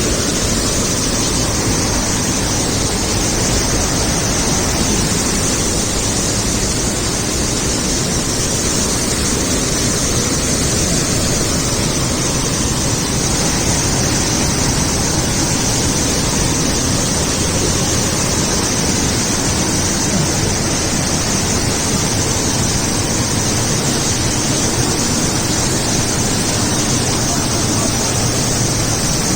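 Waterfall crashing down, a loud, steady rush of water with no let-up.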